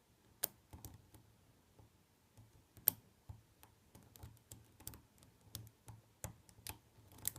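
Lock pick and tension wrench working the pin stack of an ABUS C83 padlock: a scatter of light, irregular clicks and ticks as pins are lifted and set. The sharpest clicks come about half a second in and near three seconds in.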